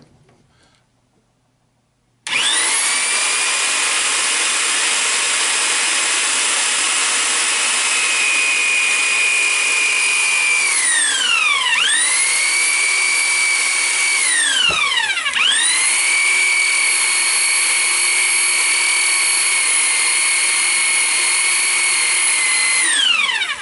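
Central Machinery portable electric pipe threader's motor running as the die cuts threads onto a steel pipe: a loud, steady whine that starts about two seconds in. It winds down and spins back up twice near the middle, with a click before the second restart, then runs on and spins down at the end.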